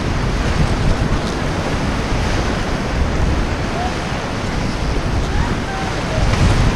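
White-water rapid rushing and crashing around a rubber raft, a dense steady roar with wind buffeting the microphone. Faint shouts rise over it in the second half.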